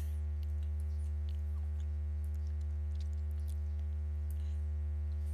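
Steady low electrical hum with a buzzy ladder of overtones, typical of mains hum in the recording, with a few faint ticks.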